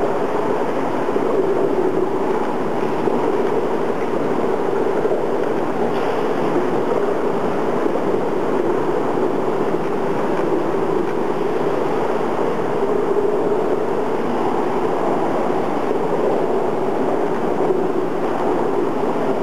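A steady rushing noise that holds at an even level with no breaks or rhythm.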